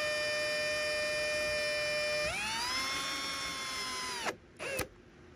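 Power drill-driver running as it drives a screw with a large washer through polystyrene foam board into a wooden post. The motor whine holds a steady pitch, rises in pitch a little over two seconds in, and stops about four seconds in, followed by a short click.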